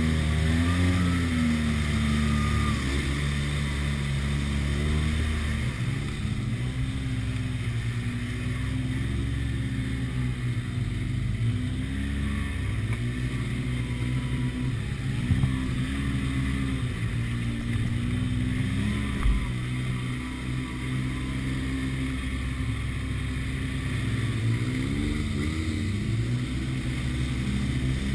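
Side-by-side UTV engine running under load on a rough trail, its revs repeatedly rising and falling with the throttle, heard from the driver's seat. A couple of brief knocks cut through about halfway.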